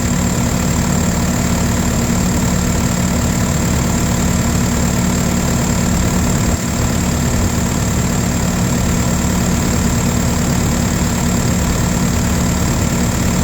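Case 850M's diesel engine idling steadily with the air conditioning running, a thin high whine held steady over it.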